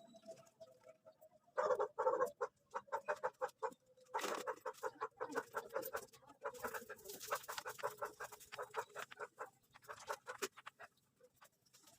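An animal calling in rapid runs of short notes, starting about one and a half seconds in and again about four seconds in, then thinning out.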